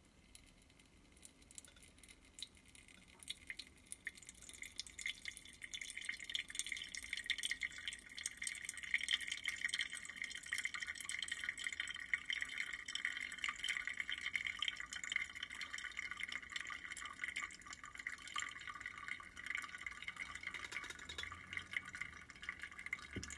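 Brewed coffee dripping from a plastic cone pour-over dripper into the vessel below. The drips are sparse at first and quicken into a fast, dense run of small drops about four seconds in.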